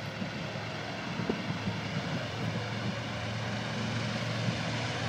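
B-25 Mitchell's two Wright R-2600 radial engines at takeoff power on the takeoff run, heard from a distance as a steady propeller drone that grows slowly louder.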